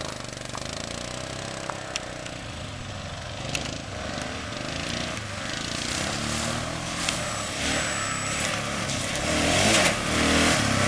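Dual-sport motorcycle and ATV engines running as they ride down a dirt trail, getting louder as they come closer, their pitch rising and falling with the throttle. Near the end the tyres splash through puddles.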